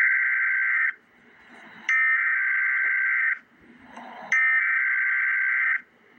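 Emergency Alert System SAME header: raspy digital data bursts of two alternating tones. The end of one burst is followed by two more, each about a second and a half long with about a second's pause between.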